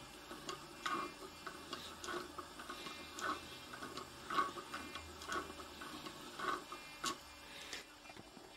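Hand-cranked wooden automaton's mechanism clicking as its wire crank handle is turned: a run of irregular clicks, about two a second, that stops about seven seconds in.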